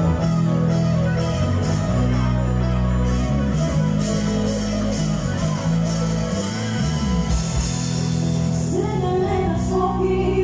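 A live rock band playing, with a prominent electric bass line from a Yamaha TRB1005J five-string bass under drums with a steady cymbal beat, electric guitars and keyboard. A woman's singing voice comes in about two seconds before the end.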